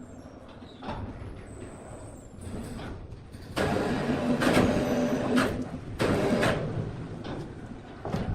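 Sawmill machinery working with scattered knocks. About three and a half seconds in, it turns loud with a steady low hum for roughly three seconds, then eases back.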